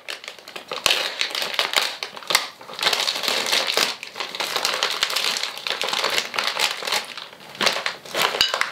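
Plastic packaging crinkling and crumpling as an item is worked out of a clear plastic bag by hand, in irregular rustles with a few sharper crackles.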